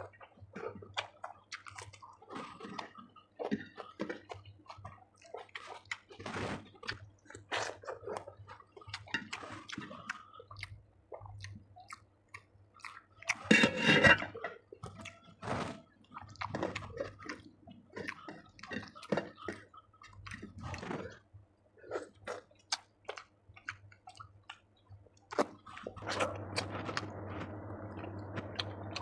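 Close-miked chewing and wet mouth sounds of someone eating chicken curry with potato and rice: irregular smacks and clicks, with one louder, longer wet burst about halfway through. A steady hum comes in near the end.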